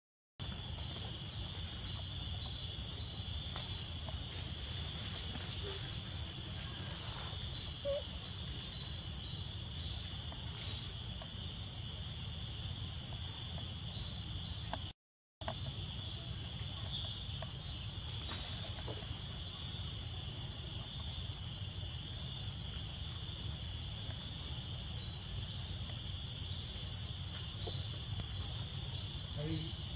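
Steady, high-pitched chorus of forest insects with a fine, rapid pulsing, over a low rumble. The sound drops out briefly near the start and again about halfway through.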